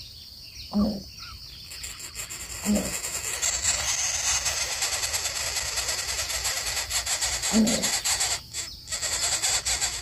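Greater coucal giving short, low single hoots, three notes spread a couple of seconds apart, over a loud steady hiss that sets in about two seconds in.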